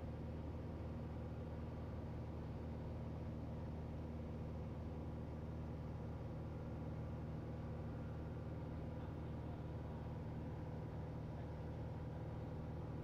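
Cabin drone of a Cessna 182L in level cruise: the six-cylinder Continental O-470 engine and propeller running at a constant, even pitch.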